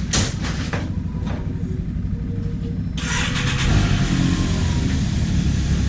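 A short clunk right at the start, then the Can-Am Maverick X3 side-by-side's turbocharged three-cylinder engine starts about three seconds in and keeps running.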